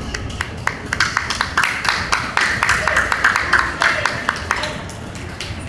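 Several people clapping their hands in quick, uneven claps that build up about a second in and thin out near the end, over shouting voices.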